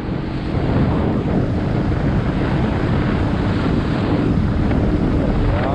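Wind buffeting the microphone during paramotor flight, with the paramotor's engine and propeller droning steadily underneath at an even pitch.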